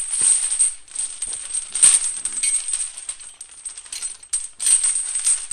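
Irregular jingling and rattling of small metal objects, swelling and fading, louder about two seconds in and again near the end.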